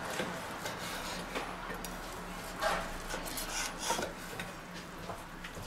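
A carving knife sawing through a stuffed pork fillet roll roast on a wooden cutting board: irregular scraping strokes of the blade, with a few louder strokes about three and four seconds in.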